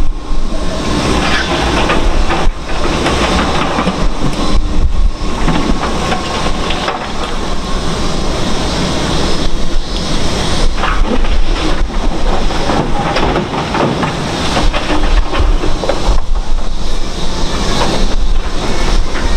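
Heavy demolition machinery running, with a dense, continuous metallic clatter and rattle as scrap metal is handled.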